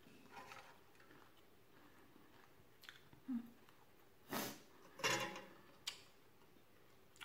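Quiet chewing and mouth noises of a person eating with her hands, with a few soft clicks and two louder short noisy bursts about four and five seconds in.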